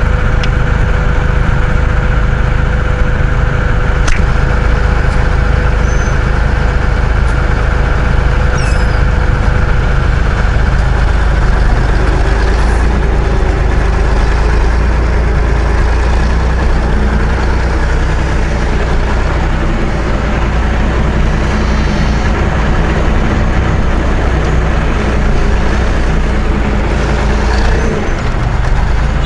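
Large tractor's diesel engine running steadily with a deep drone.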